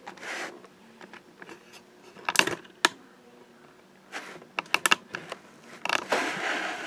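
Handling noise from a plastic-windowed card box: scattered sharp clicks and taps, a pair of them about two and a half seconds in, then a rustling crinkle near the end.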